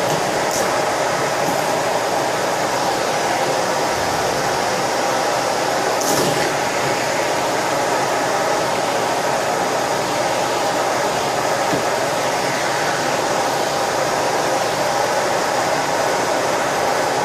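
Vacuum cleaner running steadily with a constant motor whine, with a brief rattle about six seconds in.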